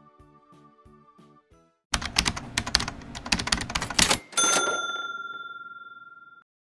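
Soft background music, then the sound effects of a subscribe-button animation: a loud, rapid run of clicks for about two seconds, followed by a single bell ding that rings on and fades away.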